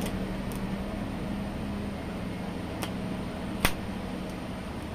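Welding arc buzzing and hissing steadily at the joint of a motorcycle exhaust pipe, with a sharp crack about three and a half seconds in.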